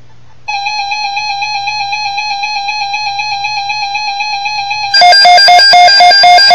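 Emergency Alert System alert tones: a steady, buzzy electronic tone over a faint low hum, then, about five seconds in, a louder, lower tone that pulses about four times a second.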